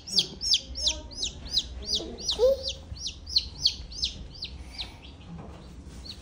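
Baby chick held in the hand, peeping: a rapid series of short, high, falling peeps, about three a second, that grow fainter and die away near the end.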